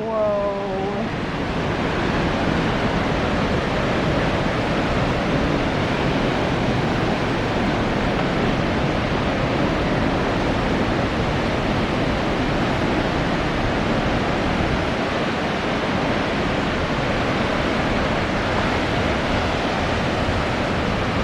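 Steady rush of the Río Celeste waterfall, falling water pouring into its pool, swelling up over the first couple of seconds and then holding even.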